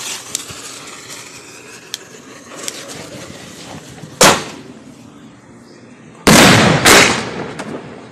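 A 1.75-inch salute firework shell fired from a mortar tube: a sharp bang of the lift charge about four seconds in, then about two seconds later two very loud bangs half a second apart as the salute breaks overhead.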